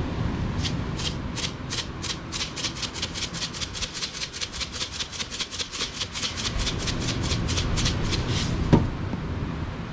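Hand-held plastic seasoning shaker shaken over a steak on a plate: a quick, even run of dry rattling shakes, about five a second, with one sharper click near the end.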